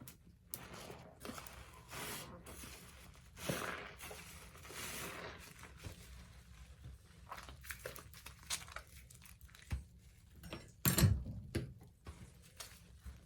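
Soap-loaded sponge squeezed by hand, crackling and squelching in irregular strokes, with the loudest squeeze about eleven seconds in.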